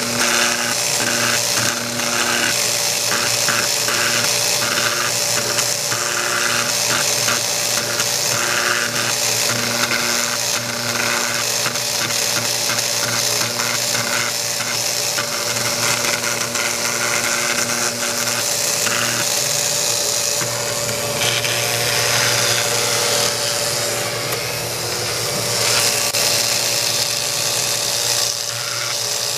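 CNC engraving machine scratching a line drawing into a polished plate with a pointed engraving bit: a steady motor hum under a high scraping hiss, with short irregular chirps as the head moves from stroke to stroke.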